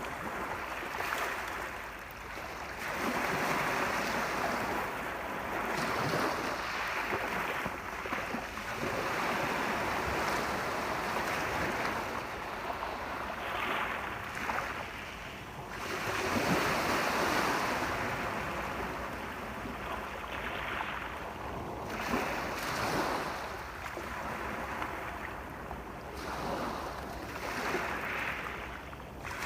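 Sea waves washing onto the shore, the surf swelling and falling away every few seconds.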